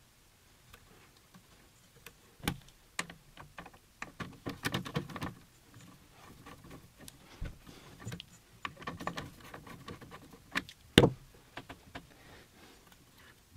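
Scattered clicks and light knocks of a screwdriver at the screws of a CNC X-carriage plate, as the screws are undone to free the nut blocks. There are clusters of small rapid clicks around five and nine seconds in, and the sharpest knock comes about eleven seconds in.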